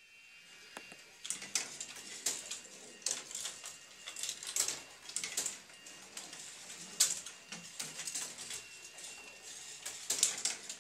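Marbles rolling and clattering through a wooden marble-run sculpture: irregular clicks and short rattles as they run along and drop between the wooden tracks.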